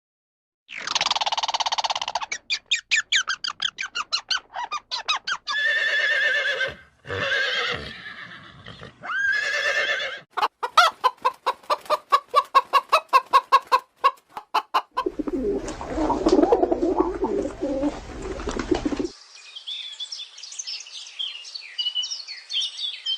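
A string of different animal calls, one clip after another: rapid pulsed calls and short pitched cries, a fast run of sharp clicking calls, then a low rough sound about two-thirds through, and high chirping near the end.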